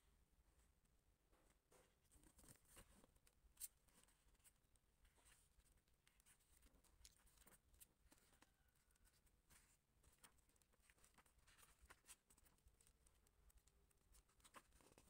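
Faint rustling and soft irregular ticks of paperback book pages being handled and leafed through, with one sharper tick a few seconds in.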